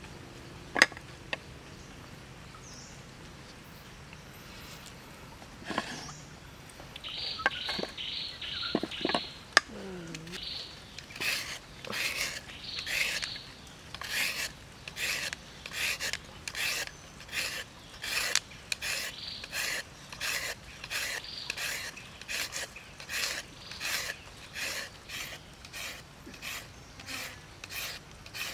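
Julienne peeler scraping thin strips off a raw carrot: a rasping stroke repeated steadily, a little over once a second, from about a third of the way in. Before that come a couple of sharp knocks and a short, quicker run of scraping strokes.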